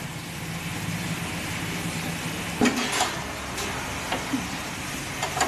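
Repair-shop background: a steady low hum with a few light metallic clinks and knocks.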